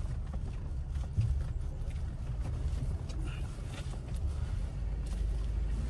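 Jeep Gladiator Rubicon driving on an off-road trail: a steady low rumble of engine and tyres, with a few faint knocks.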